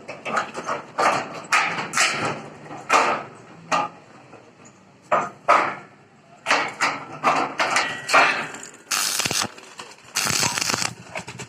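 Sharp metal knocks and clanks on steel tubing, irregular and a few per second, typical of hammer blows in a welding shop, with two longer hissing bursts near the end.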